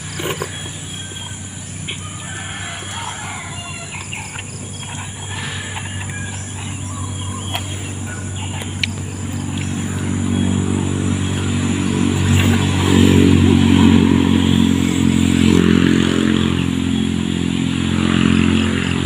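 Steady engine hum, growing clearly louder about halfway through, with faint bird chirps.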